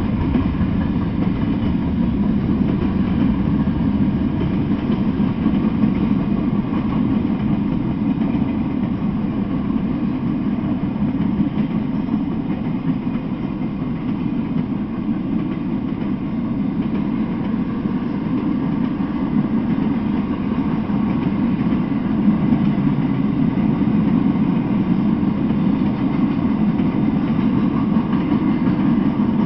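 Freight train cars rolling past on the rails, a steady low rumble of wheels on track that holds even throughout.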